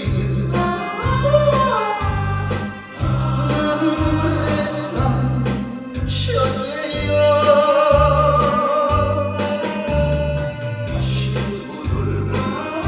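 A small group of singers singing a song together over instrumental accompaniment with a steady bass beat.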